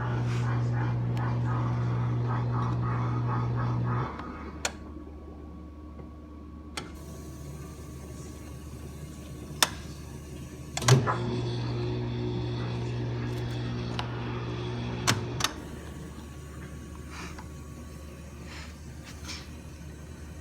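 Whirlpool dishwasher humming steadily for about four seconds, then stopping with a click. A few sharp clicks follow, and about eleven seconds in it starts humming again with a click, running about four more seconds before cutting off with another click.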